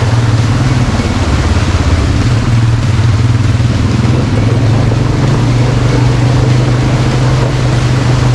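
ATV quad bike engine running at a steady pace while riding, a constant low hum under an even rushing noise.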